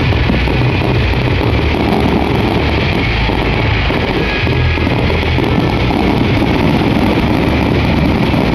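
Fireworks finale barrage: many shells bursting at once, their booms and crackling merging into a continuous loud rumble with no gaps.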